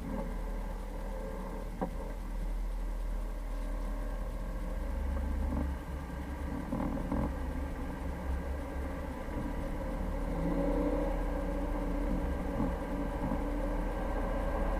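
Jeep Cherokee engine running steadily while driving, with a single short click about two seconds in.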